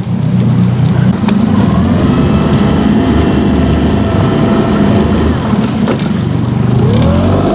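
Outboard boat motor running under way, its pitch rising near the end as it speeds up.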